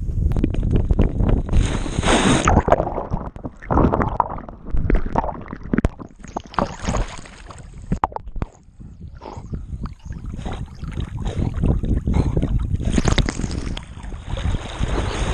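Water splashing and churning close to a chest-mounted camera as a dog runs into a lake and swims, with dense rumbling and crackling from water and fur rubbing the camera housing. The sound drops briefly about eight seconds in.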